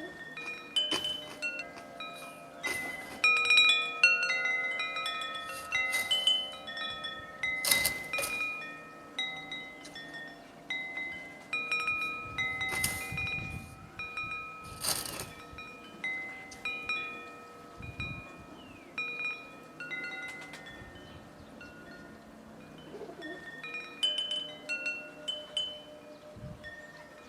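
Wind chimes tinkling: many overlapping ringing notes struck at irregular moments, with a few louder, sharper strikes.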